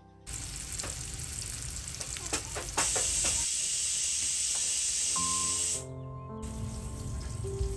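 Food sizzling in hot oil in a pan, starting suddenly just after the start and growing louder for about three seconds in the middle before easing back, with a few sharp clicks. Soft background music plays underneath.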